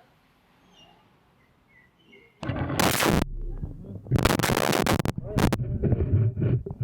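Faint bird chirps, then, about two and a half seconds in, a pneumatic impact wrench starts up loudly. It goes in four rattling bursts of about half a second each over a loud, steady low rumble, as it works the suspension fasteners.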